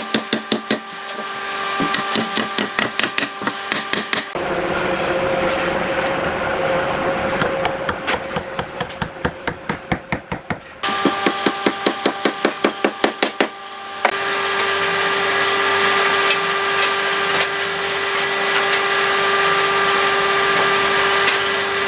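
Quick, evenly spaced hammer blows on wood, about five a second, each with a short metallic ring. They are interrupted twice by a power tool running steadily with a humming tone.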